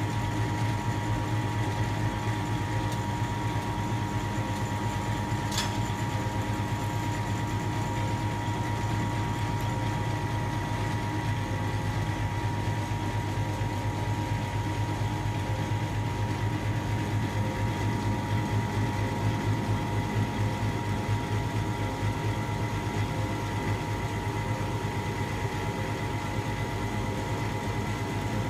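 Hydraulic power unit of a 60-tonne tensile testing machine running steadily while it loads a steel test specimen: a constant motor-and-pump hum with a steady higher whine. A single brief click comes about six seconds in.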